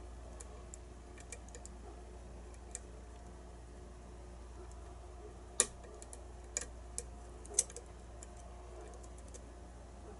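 Light, irregular metallic clicks of a lock pick working the pin stack of a challenge lock during single-pin picking, with a few sharper clicks around the middle, over a faint steady low hum.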